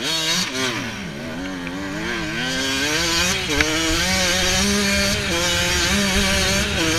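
Yamaha YZ125 two-stroke dirt bike engine revving as the bike pulls away and accelerates, its pitch climbing and dropping repeatedly with throttle and gear changes.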